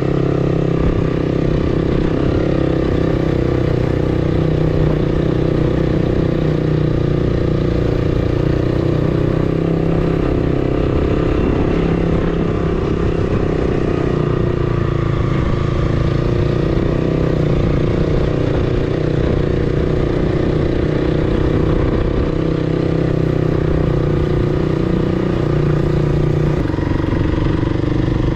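Motorcycle engine running steadily while the bike is ridden, its pitch holding fairly even, heard from the rider's seat with road and wind noise underneath.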